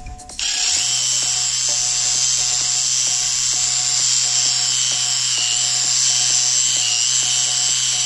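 Cordless drill driving a water-pump attachment, its motor running with a steady hum while the brass nozzle sprays water with a loud hiss; it starts about half a second in.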